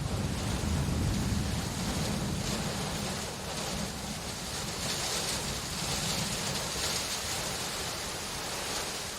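Steady rain falling, an even hiss that swells in the middle, over a low rumble that is strongest in the first few seconds.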